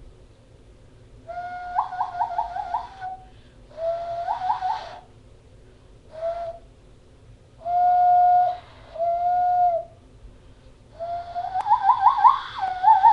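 Hand-cupped owl call: air blown into clasped hands across the gap between the thumbs, giving six low whistled notes. Some are held steady, others warble with quick upward flips in pitch, and the last is the longest.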